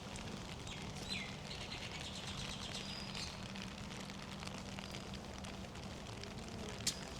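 Birds chirping in a short burst of high calls over a steady background hiss and a low hum, with one sharp click near the end.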